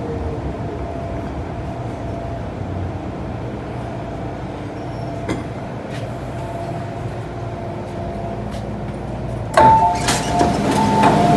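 MTR Kwun Tong line Modernised metro train running slowly into a station and coming to a stop: a steady low rumble with a faint whine. About nine and a half seconds in, the doors open with a sudden loud clunk, followed by short beeping tones.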